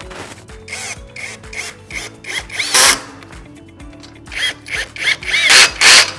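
Electric wrench running in a series of short bursts as it drives bolts, its motor whining up and down with each run; the two loudest runs come a little under three seconds in and near the end.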